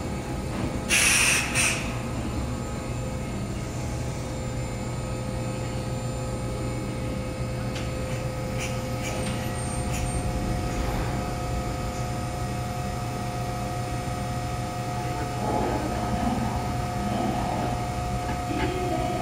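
Steady hum of a Kintetsu 5820 series electric train standing at the platform with its doors open, with a short hiss about a second in.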